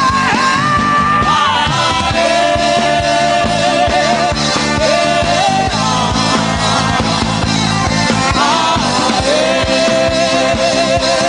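Worship band music with a steady beat and sustained chords, carrying long held melody notes that waver, twice.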